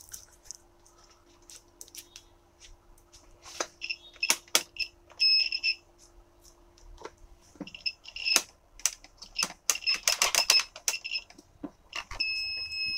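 Small sharp clicks and taps of metal tools or test probes on a smartwatch's contacts, with short high-pitched electronic beeps that come and go; one steady beep lasts about a second near the end.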